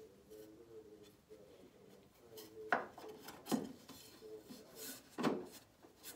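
MDF zero-clearance insert being set into the throat-plate opening of a Makita 2708 table saw and pressed down: wood scraping and knocking against the saw table. There are three sharper knocks, the first about halfway through and the loudest. This is a snug test fit, with the insert not yet seating fully.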